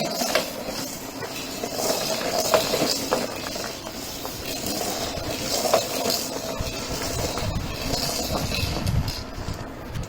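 Pull-along snail toy being pulled across the floor, its wheels rolling and its built-in rattle clattering with many small clicks.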